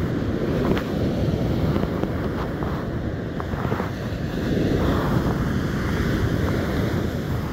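Strong wind buffeting the microphone over the steady wash of breaking surf, a dense low rumble with no let-up.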